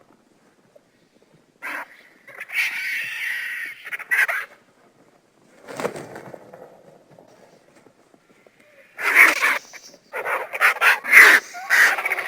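Lappet-faced vulture calling: a series of harsh, noisy calls, one long call about two and a half seconds in, and a quick run of calls over the last three seconds.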